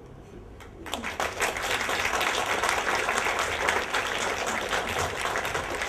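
Audience applauding, starting about a second in and continuing steadily.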